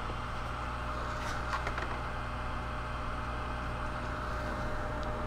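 Steady low electrical and mechanical hum with a faint higher tone and hiss, from powered-up equipment, with a few faint clicks about a second and a half in.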